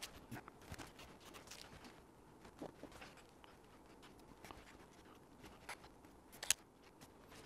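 Faint, scattered light clicks, taps and rubbing of hands pressing and burnishing dry-transfer markings onto a model rocket's body tube, with one sharper click near the end.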